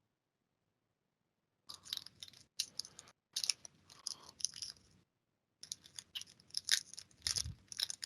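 Crinkling and rustling of trading card packs and cards being handled, in two spells of a few seconds each, made of many quick crackles.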